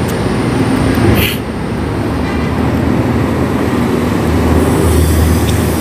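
Road traffic passing close by: a steady rumble of engines and tyres, with a short hiss about a second in and the rumble swelling near the end as a vehicle goes past.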